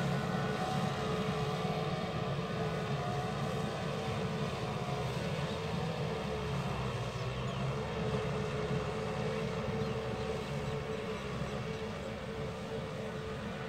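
Tractor engine running steadily while ploughing, a constant low drone with no let-up.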